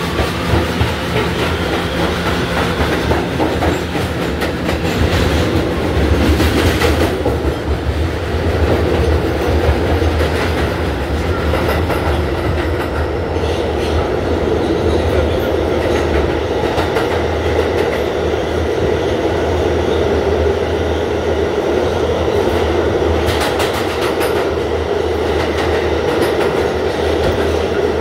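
R211 subway train running through the tunnel, heard from inside the car: a rising motor whine as it pulls away in the first few seconds, then a steady rumble of wheels on rail with occasional clacks over rail joints.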